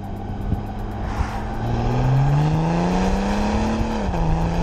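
Remapped BMW 335d's twin-turbo three-litre straight-six diesel pulling hard under full throttle, its pitch rising steadily, then dropping sharply at an upshift about four seconds in before it carries on pulling.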